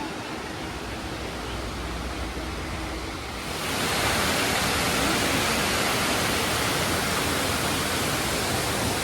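Steady rushing of falling water from a waterfall. It grows louder and brighter about three and a half seconds in.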